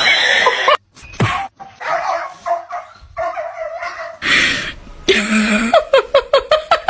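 A dog vocalizing in several short, abruptly cut clips, with scattered barks and whines. Near the end comes a fast run of short pitched yelps, about seven a second.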